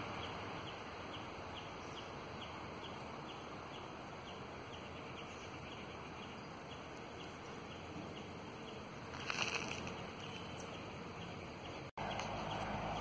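Outdoor garden ambience: a steady background hiss with a high, thin chirp repeating about three times a second, and a brief louder call about nine seconds in. Near the end the sound cuts abruptly to a louder, steady, lower rumble.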